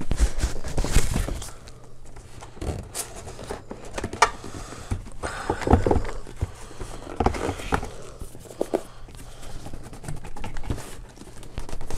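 Cardboard box and the wrapped printer inside it being handled: irregular scraping, rubbing and rustling with short knocks as hands work the printer loose from its packaging.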